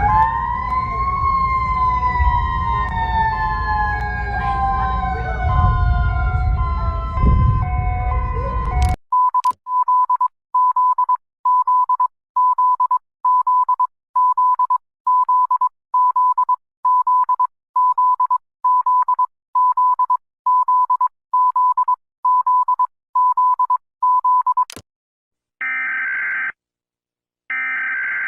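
Mock emergency-alert sounds. A siren wails, rising and then falling slowly over a steady tone and a loud low rumble, and cuts off about nine seconds in. Then a single high beep repeats about one and a half times a second for some fifteen seconds. Near the end come two buzzy digital tone bursts about a second long each, like the data header that opens an EAS alert.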